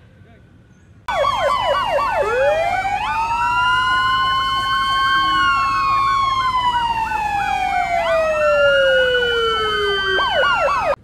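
Several emergency-vehicle sirens sounding at once, loud. One warbles fast up and down while others rise and fall in slower, long wails. They start abruptly about a second in and cut off abruptly at the end.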